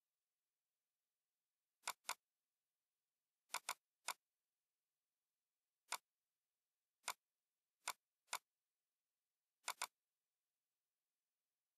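Computer mouse clicks: about eleven short, sharp clicks at irregular intervals, several in quick pairs, with near silence between them.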